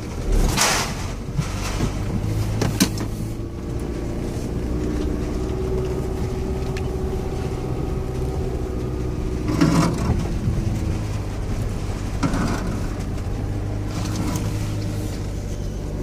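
A car driving slowly along a dirt forest track, heard from inside: the engine runs steadily, its note rising and falling a little over the tyre noise, with a few short knocks and rattles, the loudest about ten seconds in.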